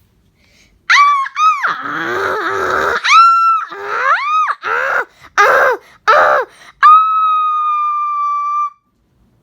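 A person screaming loudly, starting about a second in: a string of short screams that rise and fall in pitch, with a lower wavering cry among them, and then one long high scream held steady for nearly two seconds.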